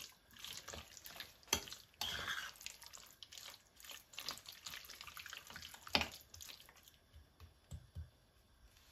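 Quiet, irregular wet splashing and squelching with light clicks, like hands working in water or wet food at a kitchen counter, dying away about seven seconds in.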